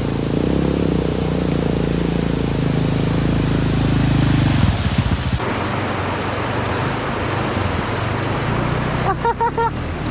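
Quad (ATV) engine running under heavy wind hiss on the microphone, stuttering briefly about halfway through. Then the sound changes abruptly to a rougher, lower engine rumble.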